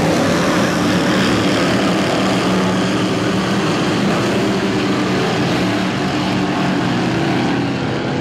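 Dirt modified race cars' V8 engines running flat out, a steady loud drone with the engine pitch rising and falling as the cars go through the turns.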